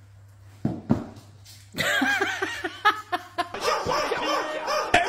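A dog barking in a quick run of short, pitched barks, starting about two seconds in after a faint hum and a couple of small knocks.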